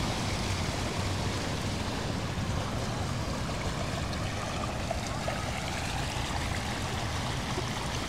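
Steady rushing of the Mekong's water pouring over the Khone Phapheng falls: an even, unbroken wash of noise.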